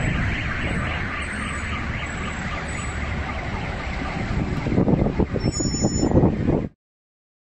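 Continuous low rumbling roar from a large explosion and its burning fireball, just after the blast, with irregular louder surges of rumble near the end before the sound cuts off suddenly.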